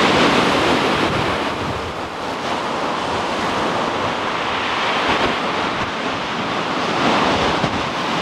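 Surf washing onto a shingle beach, a steady rushing noise that swells at the start and again about seven seconds in, with wind buffeting the microphone.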